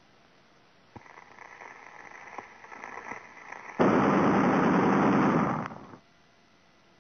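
Cartoon sound effect laid on a guitar strum: a softer crackling with scattered clicks builds from about a second in, then a loud harsh blast like gunfire lasts about two seconds and cuts off suddenly.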